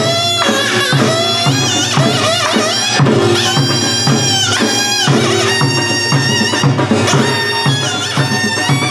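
Korean traditional folk music: a loud wind-instrument melody that bends and slides in pitch, over a steady drum beat.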